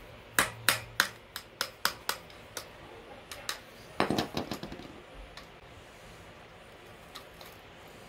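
Sharp metal-on-metal taps of a steel punch against the outer ring of a 6-speed bicycle freewheel, to loosen it for opening: about eight quick strikes, then a short rattling clatter of metal about four seconds in.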